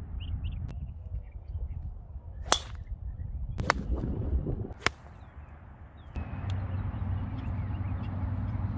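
Golf club striking a ball: sharp cracks, three loud ones about a second apart near the middle, over a steady low wind rumble on the microphone.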